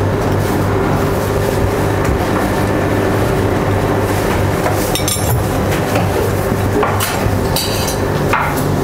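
Steady hum of kitchen equipment, with a few short clinks of dishes about five seconds in and again near the end.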